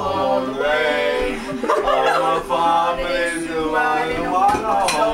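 A man singing over music, with long held, sliding notes.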